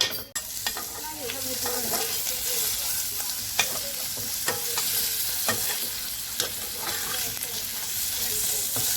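Basil and carrot sizzling in hot oil in a non-stick pan while being stirred, with irregular sharp knocks and scrapes of the utensil against the pan. The sizzle starts suddenly right at the beginning and then runs steadily.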